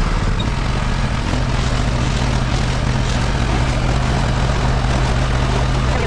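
Diesel farm tractor engine running at a steady speed. It shifts pitch slightly about half a second in, then holds even.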